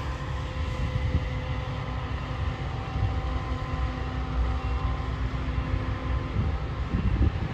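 Combine harvester running steadily, heard from inside the cab: a low rumble with a steady machine whine of several held tones.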